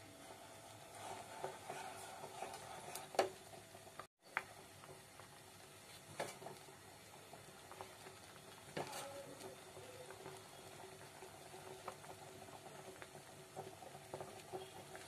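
Thickened milk with rice-flour dumplings bubbling gently in a non-stick pan, stirred with a silicone spatula. A few sharp taps of the spatula against the pan, the loudest about three seconds in.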